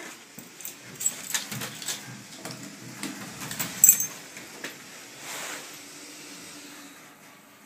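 Hydraulic lift in operation: a run of clicks and metallic rattles, the loudest a sharp jingle about four seconds in, then a faint steady hum from about five seconds on.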